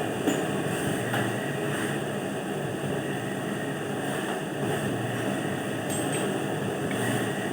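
Steady running of a machine or engine, with a few faint clicks.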